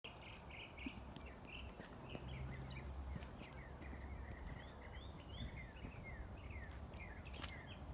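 Birds chirping over and over in short falling notes, faint over a steady low rumble, with a couple of sharp clicks near the end.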